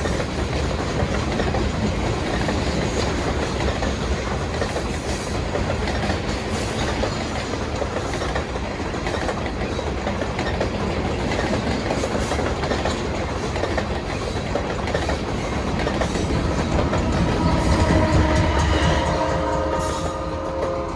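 Old rusty freight cars rolling past on the rails in a steady rattling clatter of wheels and car bodies that swells toward the end. Near the end several steady tones sound together over the clatter.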